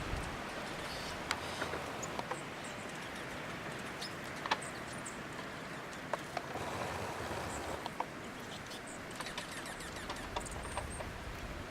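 Steady hiss of wind-blown snow, with scattered sharp ticks and faint, brief high chirps of small birds at the feeders.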